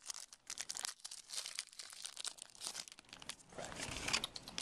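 Trading cards and their pack wrapper being handled, with crinkling and rustling and quick small clicks as the cards are slid apart. Denser, louder crinkling comes near the end.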